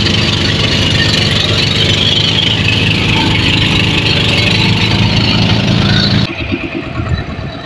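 Fishing boat's engine running steadily under way, then throttled back about six seconds in, dropping to a much quieter idle.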